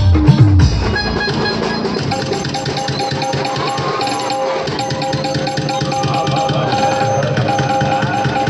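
Live band music: deep drum beats stop under a second in, giving way to fast, even percussion under long held notes.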